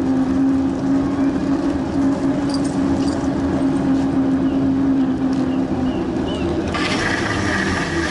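Riding noise of a bicycle on a paved path, picked up by a bike-mounted action camera: a steady rumble with a steady hum that fades out about six seconds in, and a brighter hiss over the last second or so.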